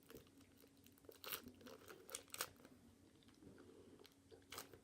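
Faint chewing with a few short, sharp crunches, someone eating a crunchy bite of food.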